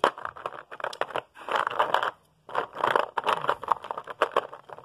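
Small hard plastic toy train cars clattering against each other and a plastic box as a hand rummages through them: a run of quick clicks and rattles, thickest twice in the middle.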